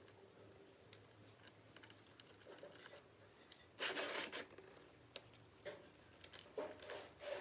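Faint work noises on a laptop: scattered small clicks and scratches, with a short rustling scrape about four seconds in and another near the end.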